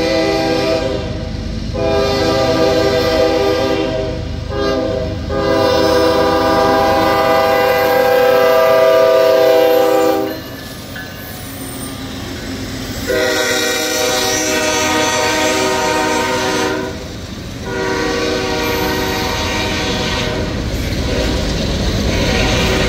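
Freight locomotive air horn blowing the grade-crossing signal, long, long, short, long, over the steady rumble of the train's wheels on the rails. After a pause of about three seconds the horn blows two more long blasts.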